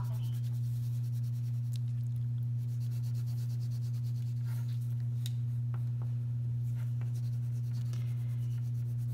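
Wax crayon rubbing on paper in short scratchy strokes as a section is colored in hard, over a louder steady low hum.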